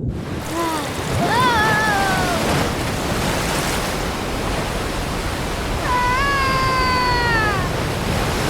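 Cartoon sound effects: a steady rushing hiss with two drawn-out cries that fall in pitch, a short one about a second in and a longer one near the end, like an animal mewing.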